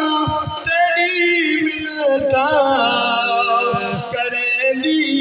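A man's voice chanting a lament in a melodic, wavering style into a microphone, with long held notes that bend up and down.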